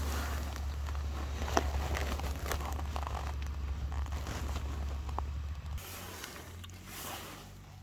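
Rustling and scattered clicks and knocks of things being handled in a small enclosed space, over a steady low hum that drops away about six seconds in.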